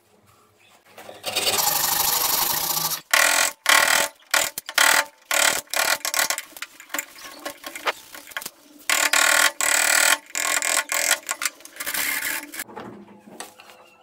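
A steel chisel cutting through a wooden board by hand in a series of short, irregular scraping strokes, with a longer steady scrape about a second in.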